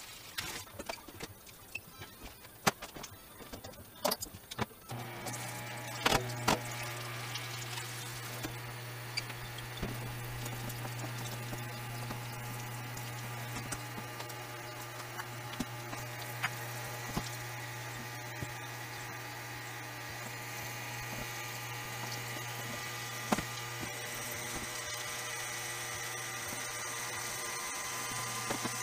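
A few knocks and clicks of handling, then from about five seconds in a small electric water pump hums steadily as it pushes water through a hose.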